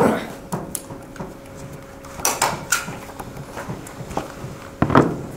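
Scattered knocks and clicks of objects being handled in a meeting room, the loudest at the start and about five seconds in, over a faint steady hum that stops shortly before the end.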